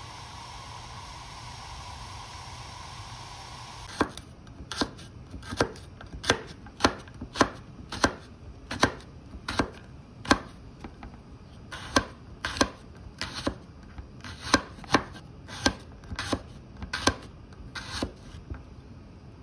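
For the first few seconds, a steady hiss of spaghetti boiling in a pan of water. Then a chef's knife slicing garlic cloves on a wooden cutting board: about twenty sharp knocks of the blade on the board, roughly one and a half a second, with a short pause midway.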